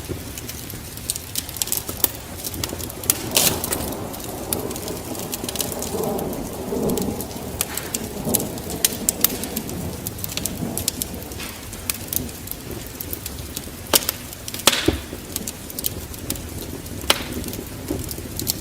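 Wood fire crackling with scattered sharp pops over a steady hiss of rain. A low rumble of thunder swells a few seconds in and dies away by about the middle.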